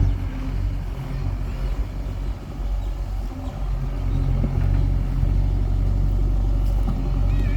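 Diesel engine of a backhoe running steadily, growing louder about four seconds in.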